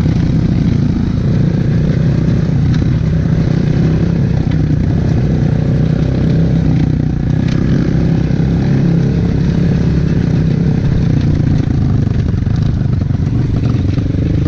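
Regulmoto dirt bike's engine running under way at a fairly even pace, heard from the rider's seat, with a rushing noise over it.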